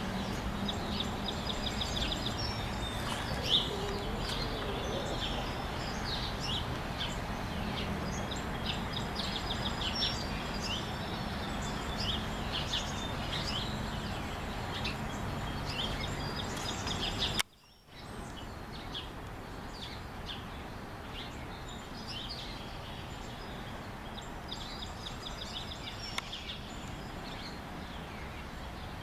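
Songbirds chirping and trilling over a steady low outdoor rumble. The sound cuts out for about half a second two-thirds of the way through, then resumes a little quieter.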